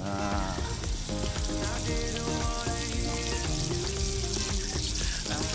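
Flour-coated chicken skin deep-frying in hot oil in a frying pan: a steady crackling sizzle, with background music underneath.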